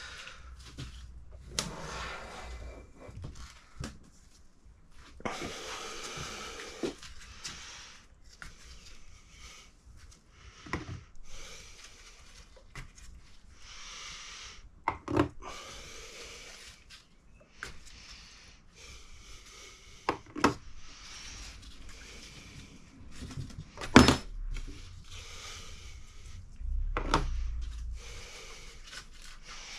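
Intermittent clicks, knocks and rustling of metal parts and hand tools being handled while valve-train parts are stripped from a cylinder head, with one sharp knock about 24 seconds in as the loudest.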